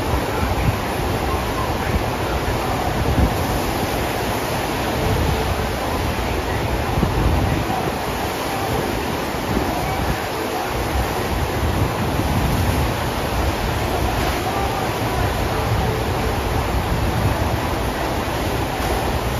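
Steady rushing of the FlowRider surf simulator's sheet of water, pumped at speed up the padded slope and churning into a standing wave.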